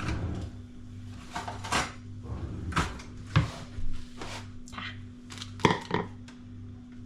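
Kitchenware clattering: a bowl being fetched and handled, with a string of separate knocks and clinks, the loudest near the end, over a steady low hum.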